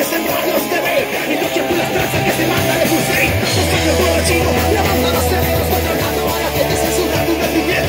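Live rock band playing, guitars to the fore. About halfway through, a low bass note is held for a couple of seconds.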